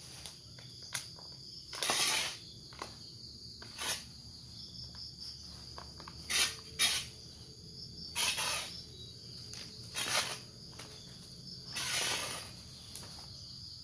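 A stick scraping and rustling through dry leaf litter and soil in short strokes every second or two, as someone digs for earthworms, over a steady high-pitched insect chorus.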